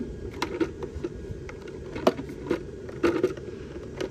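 Hard plastic clicks and knocks as the recovery tank of a Hoover Spotless portable spot cleaner is handled and fitted back together: several separate sharp taps, with a louder one about two seconds in and a cluster around three seconds.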